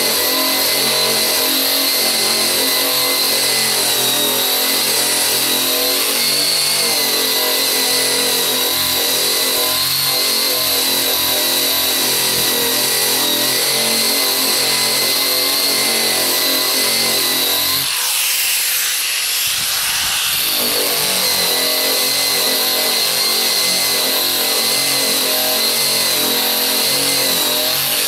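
Eastwood Contour SCT surface-conditioning tool running with an abrasive drum, grinding old paint off a car's steel body panel: a steady motor whine over a rough grinding noise. About eighteen seconds in the grinding briefly thins out for a couple of seconds, then picks up again.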